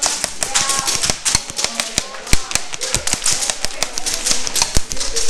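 Airsoft guns firing: a dense, irregular run of sharp snapping pops, several a second.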